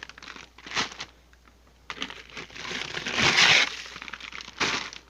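Plastic and cardboard frozen-food packaging crinkling and rustling as packages are handled and pulled out of a chest freezer, in irregular bursts loudest about three seconds in, with a couple of sharp knocks.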